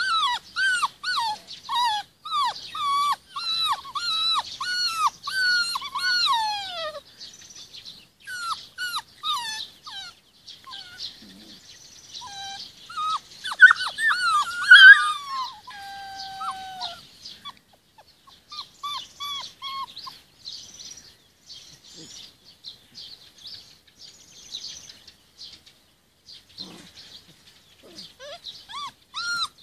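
46-day-old Rhodesian Ridgeback puppies whining and yelping: short, high cries that fall in pitch, coming in quick succession for the first several seconds, then more scattered. The loudest cries come about halfway through, followed by one longer falling whine.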